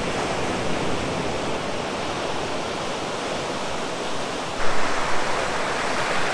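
Steady rush of surf washing onto the beach, which grows suddenly louder about four and a half seconds in.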